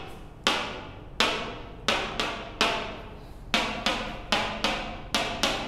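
A pointer stick tapping on a whiteboard, about eleven sharp taps at roughly two a second, in short uneven groups, as it moves from word to word.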